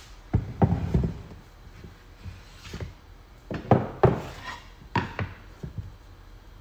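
Pieces of wood being handled, making a series of irregular wooden knocks and clunks, some in quick pairs, about a dozen in all.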